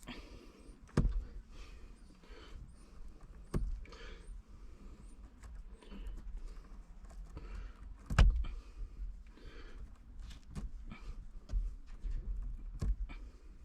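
Scattered rustles and clicks of car radio-harness wires being handled as the cut insulation ends are pulled off by hand. Now and then a sharper knock comes, the loudest about eight seconds in.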